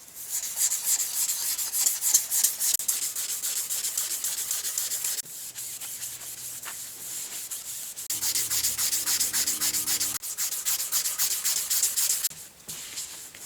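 Rapid back-and-forth hand sanding on the steel taper of a three-phase motor's cutter head shaft, cleaning it up, a dense run of fast scratchy strokes that eases off for a few seconds in the middle.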